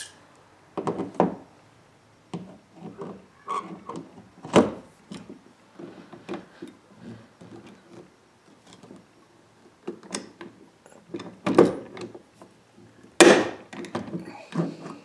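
Hand rivet gun being squeezed again and again to set a 3/16-inch tri-grip rivet into an aluminium boat: a series of irregular clunks and clicks from the tool's handles and jaws, with sharp, loud clicks about four and a half seconds in and again near the end.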